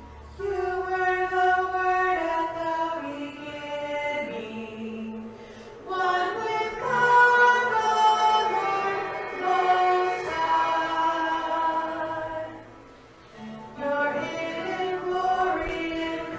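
Choir singing slow, held phrases, with two short breaks between phrases.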